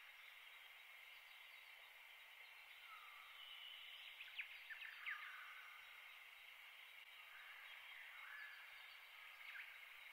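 Faint outdoor ambience with small birds chirping, including a couple of sharp chirps about four and five seconds in.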